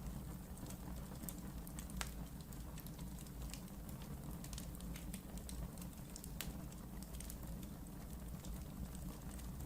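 Wood fire burning in a fireplace: a steady low rumble of flames with irregular sharp crackles and pops, the loudest pops about two seconds in and a little past six seconds.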